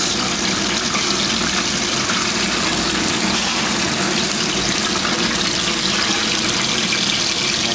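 Battered food deep-frying in the hot oil of a commercial chip-shop fryer: a steady hiss.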